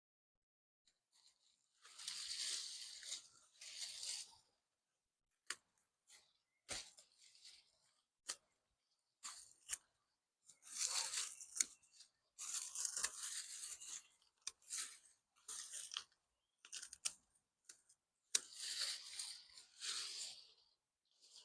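Sweet potato vines and leaves rustling and tearing as they are cut back and pulled, in three longer bouts, with short sharp snips of scissors in between.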